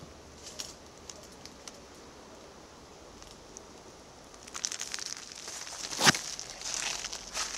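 Footsteps crackling through dry leaves and undergrowth, starting about four and a half seconds in, with one sharp crack about six seconds in.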